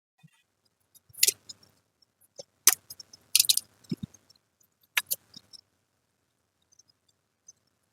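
Short, sharp scratchy clicks and brief crackles from tools working at a circuit board's capacitor through-holes, clearing out leftover component remnants. There are four or five separate sounds in the first five seconds, with a soft knock about four seconds in, then quiet.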